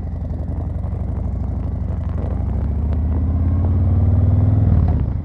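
Harley-Davidson Fat Boy 114's Milwaukee-Eight 114 V-twin through Vance & Hines Eliminator 300 pipes, pulling away from a stop: the exhaust rises steadily in loudness and pitch, then falls away sharply near the end.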